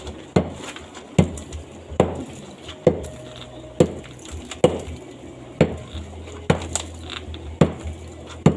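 Hammer blows struck by hand at a steady pace, about one a second, ten in all, each a sharp hard knock with a short clinking ring.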